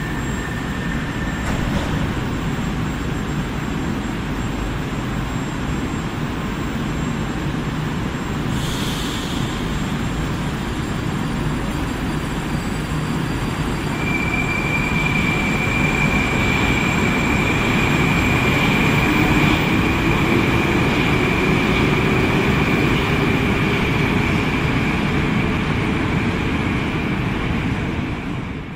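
Moscow Metro train pulling out of the station: a short burst as the doors close, then rumbling and a steady whine from the traction drive, with a second whine rising in pitch as the train gathers speed. The noise peaks and then fades near the end as the train leaves.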